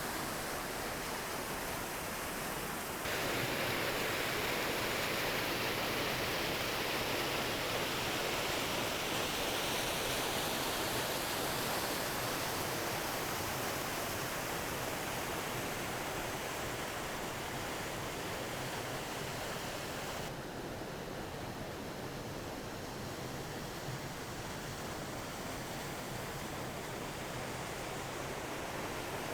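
Steady rushing of a small waterfall's falling water. It turns abruptly louder and brighter about three seconds in and duller and a little softer at about twenty seconds.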